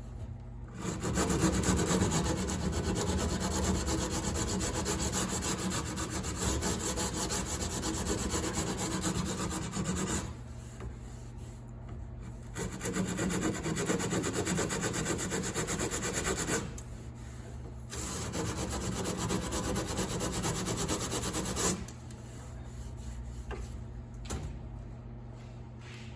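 Japanese panel saw cutting through a kayak's seat flange, in three bouts of sawing: a long one of about nine seconds, then two of about four seconds each, with short pauses between them.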